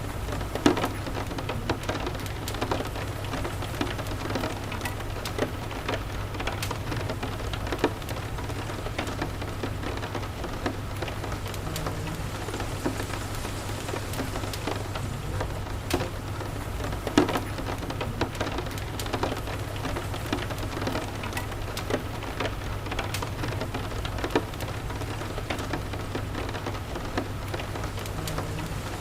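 Steady rain falling, with many scattered sharp clicks and pops and a steady low rumble underneath.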